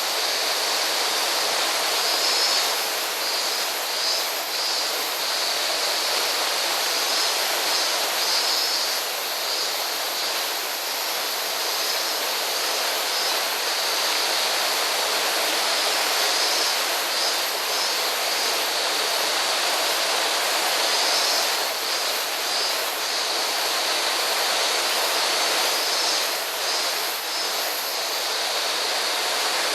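Rushing water of a gorge stream and waterfall, a steady hiss with no pauses.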